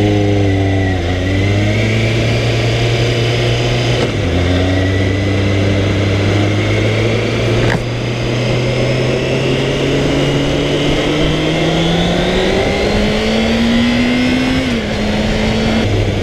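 Kawasaki ZXR400's carbureted inline-four engine running under way, heard from the rider's seat. Its note climbs slowly and drops sharply about four seconds in and again near the end, as the rider shifts up.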